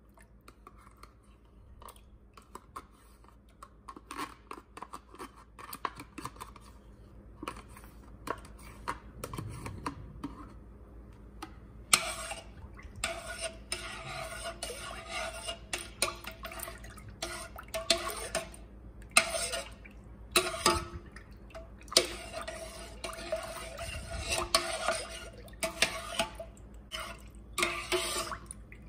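A metal spoon scooping sour cream from a plastic tub with light clicks and scrapes. About twelve seconds in it starts stirring the cream into milk in a stainless steel pot, scraping and clinking against the pot in repeated strokes with short pauses and a slight ring from the pot.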